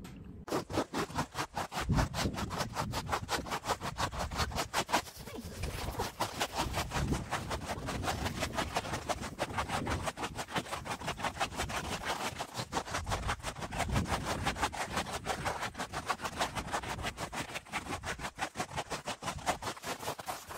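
Footsteps crunching on packed, deep snow: a fast, steady run of short crunches as someone walks along a trodden path.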